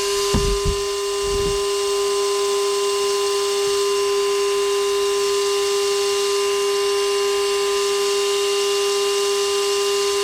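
Shop vac motor running steadily in blower mode, its whine pushing air into the car's exhaust to pressurize it for leak finding. A few low thumps in the first second and a half.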